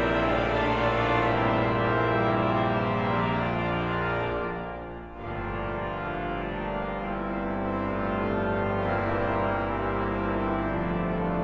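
Organ playing slow, sustained chords; the sound dips briefly about five seconds in as one chord gives way to the next.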